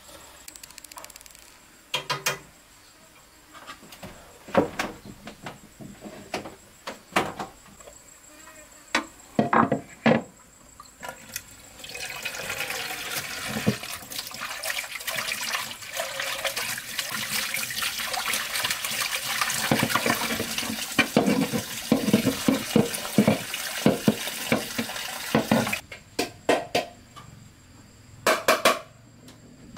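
Tap water running steadily into a bowl and a large metal washing basin while dishes are washed, with clinks and knocks of crockery and utensils. Separate clinks and knocks come before the water starts, about twelve seconds in, and a few more after it stops.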